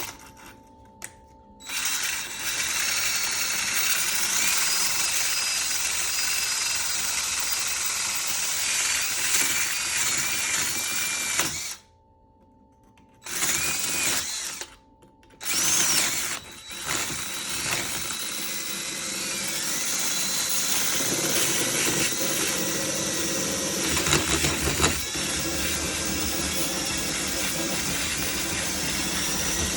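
Electric drill spinning a sharpening attachment that grinds against the steel blade of a pair of loppers, a loud grinding hiss with a whine that wavers as the blade is pressed on. It starts about two seconds in, stops twice briefly near the middle, then runs on.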